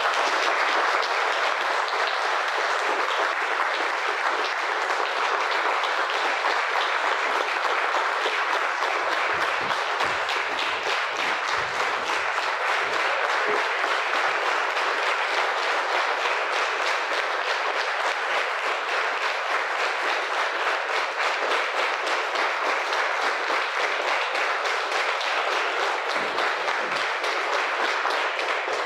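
An audience applauding steadily: a long, unbroken round of clapping from a room full of people. A few low knocks come through about ten seconds in.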